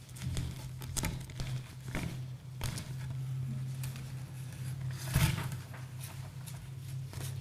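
Light rustling and scattered soft knocks over a steady low hum, with a louder rustle about five seconds in.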